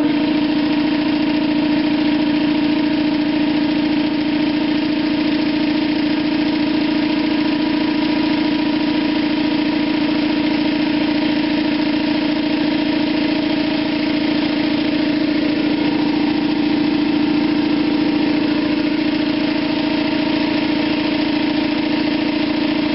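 Air compressor cutting in and running steadily with a strong motor hum, refilling its tank after the air supply for the spray gun has run low.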